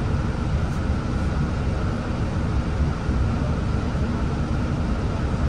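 Steady low rumble of a city bus's engine idling, heard inside the passenger cabin while the bus stands still.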